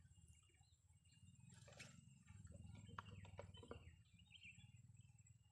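Faint outdoor background with a steady low rumble. A brief rushing noise comes about one and a half seconds in, and a few short chirps follow around three seconds in.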